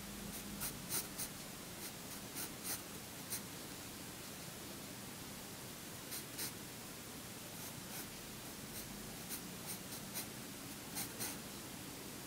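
Wooden pencil sketching on drawing paper: faint, short strokes at an irregular pace, with pauses between them.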